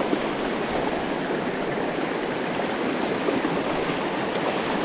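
Shallow, fast river rushing over rocks through whitewater riffles: a steady noise of running water.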